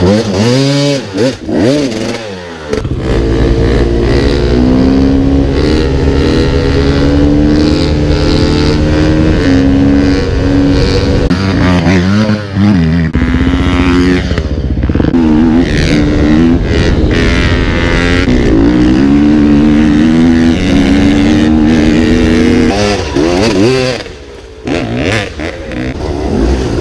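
Off-road dirt bike engines revving and running under throttle, the pitch rising and falling as the riders work the throttle over several short clips. There are quick revs at the start and another burst near the end.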